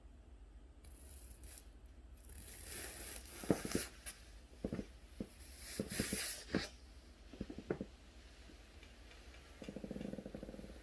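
A dog snoring in its sleep. There are two breathy, hissing breaths with a scatter of short clicks between them, then a low buzzing snore about a second long near the end.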